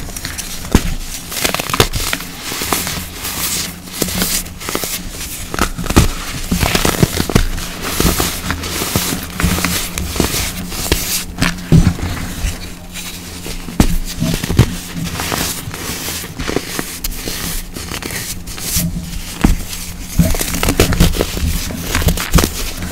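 Hands squeezing and crumbling blocks of baking soda into powder: a dense, irregular run of crunches and crackles.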